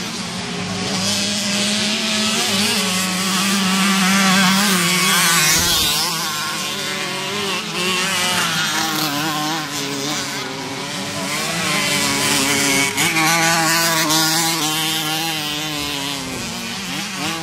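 Several vintage 50cc two-stroke motocross bikes racing, their small engines buzzing and revving up and down, getting louder twice as bikes pass close by.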